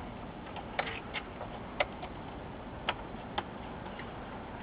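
About five light, irregular metallic clicks as a monitor's thin sheet-metal RF shield is handled and pressed back into place on its metal chassis, over a faint steady hiss.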